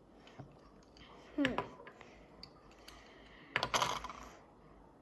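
Small plastic Zuru Max toy pieces being handled and fitted together: scattered light clicks, with two louder clattering bursts, one about a second and a half in and one near the end.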